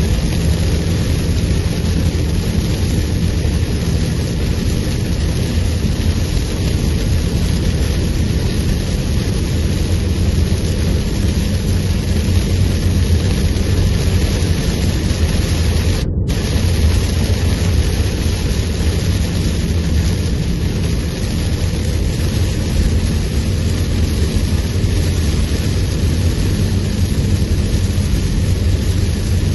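Very heavy rain drumming on a moving car together with tyre and road noise on the flooded motorway, heard from inside the cabin as a loud, steady rushing hiss over a low rumble.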